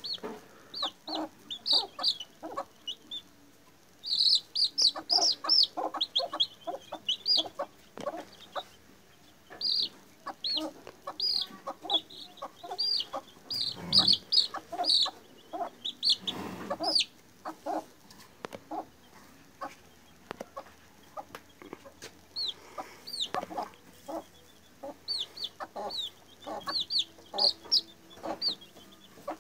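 A two-week-old chick peeping over and over while held in the hands: short high peeps in quick runs, with a couple of louder rubbing bumps about halfway through.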